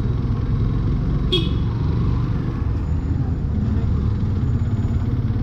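Motorcycle engine running as the bike rides slowly down a street, with a short vehicle horn toot about a second in.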